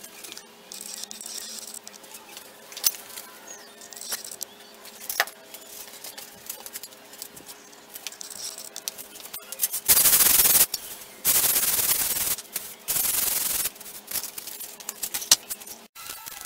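Sandpaper rubbing in three loud strokes of about a second each, starting about ten seconds in, after a stretch of faint clicks and knocks.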